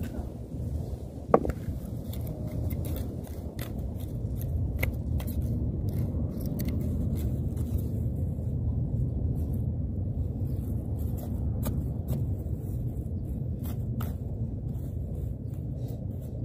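A bladed hand tool digging and scraping into dry, gritty garden soil, with many short scrapes and clicks, one sharper click about a second and a half in, over a steady low rumble.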